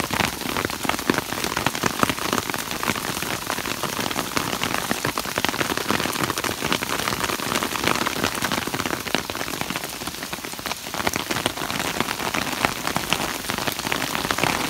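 Heavy rain and hail hitting a clear umbrella overhead: a dense, steady rattle of many small hits.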